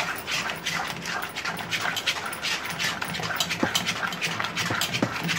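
A spoon beating thick cream (malai) by hand in a steel bowl in quick, even strokes, about four or five a second: cream being churned into butter.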